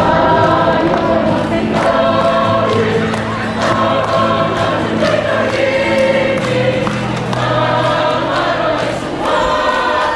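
A choir sings in phrases of held notes over a steady, sustained low accompaniment.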